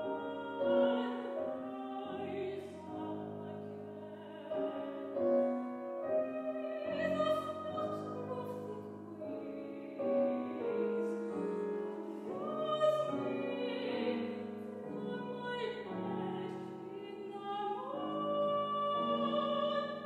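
A soprano singing a classical art song, accompanied by a grand piano.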